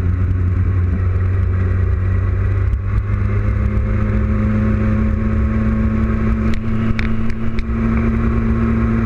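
Sport motorcycle engine running at low revs as the bike rolls slowly, heard from a camera mounted on the top yoke; the engine note rises slightly about three seconds in. A few light clicks come about two-thirds of the way through.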